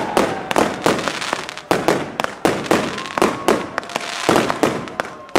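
Fireworks going off in quick succession: a string of sharp bangs, about four a second, each with a short crackling tail. The shots ease briefly near the end before a loud bang.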